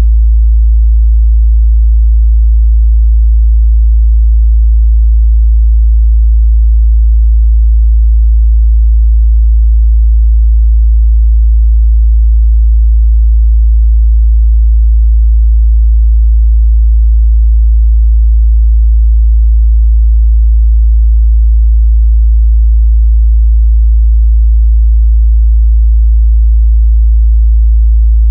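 A steady, loud 55 Hz sine-wave test tone: one unchanging low bass hum, used to check how speakers or headphones reproduce mid-bass.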